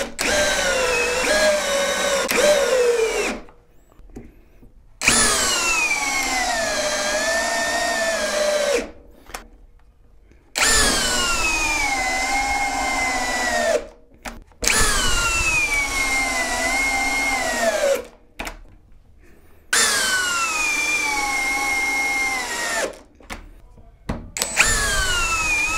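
Ingco 20V brushless cordless drill driving long screws into a wooden beam, one screw after another, with short quiet gaps between. Each drive lasts about three to four seconds, and the motor's whine drops in pitch as the screw goes deeper and the motor slows under load.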